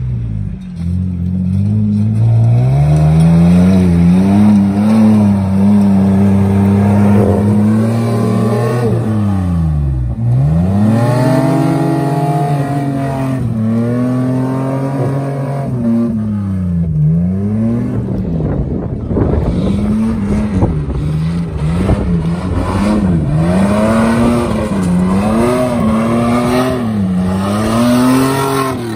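Off-road Mitsubishi Pajero's engine revving hard as the 4x4 churns through a deep mud rut with its wheels spinning and throwing mud. The engine pitch rises and falls again and again as the throttle is worked.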